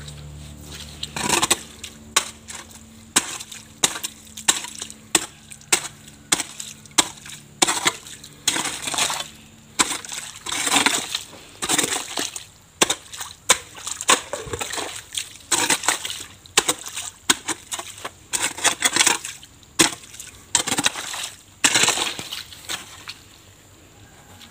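A hoe blade chopping and scraping into wet mud and shallow puddle water, cutting a drainage channel. The strikes are irregular, about one to two a second, with wet splashing.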